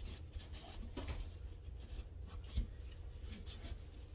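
Hands working faucet parts: scattered light scrapes and small clicks, with one sharper knock a little past halfway, over a low steady hum.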